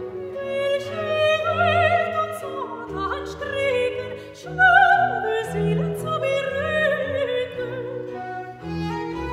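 Soprano singing a Baroque church aria with a wavering vibrato, accompanied by recorders and violas playing in unison over the bass. The voice climbs to its loudest held note about halfway through.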